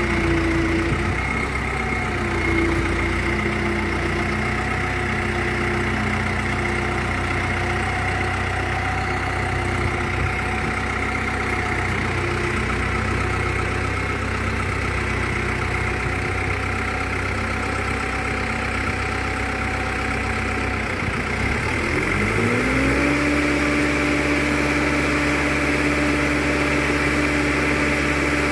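An engine running steadily; about three-quarters of the way through its speed dips and then climbs to a new, steady higher pitch.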